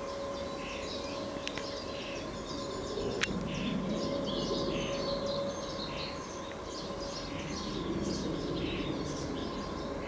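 Nestling common starling (Sturnus vulgaris) begging from its nest box with short calls repeated about twice a second, the hunger calls of a young bird close to fledging.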